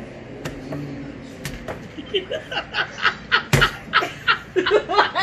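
Sharp clicks of playing cards being slapped down and passed on a table, then from about two seconds in a person laughs hard in quick repeated bursts, with one more card slap in the middle of the laughter.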